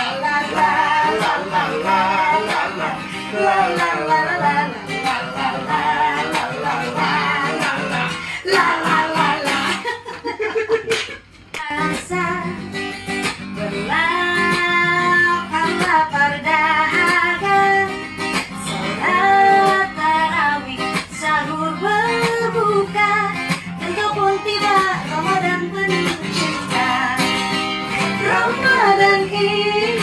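Acoustic guitar strummed as accompaniment to voices singing a slow melody, with a short break in the music about eleven seconds in.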